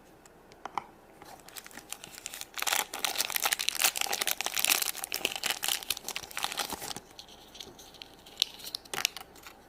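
A small plastic packaging bag being torn open and crinkled by hand, a dense crackling from about two seconds in until about seven seconds, then a few scattered crinkles.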